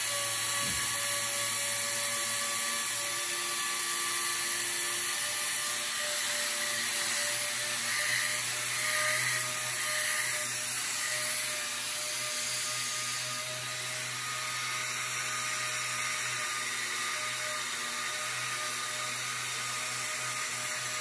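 Air-powered Snap-on dual-action orbital sander running steadily with 80-grit 3M paper against a steel body-hammer face: a steady high whine over the hiss of the air motor and abrasive, sanding scratches out of the hammer face.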